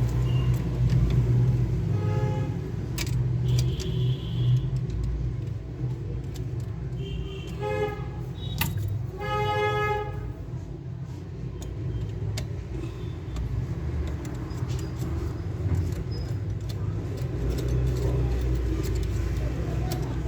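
Steady low traffic rumble with short vehicle horn toots, one about two seconds in and two more near the middle, over scattered small clicks and rattles of handled parts.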